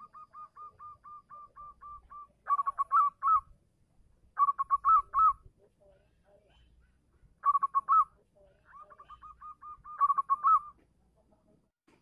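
Zebra dove (perkutut) singing, a male's song calling to a female: a quick run of soft, even cooing notes, about five a second, then louder trilled coo phrases with rising flicks, four of them. A second quick run leads into the last phrase near the end.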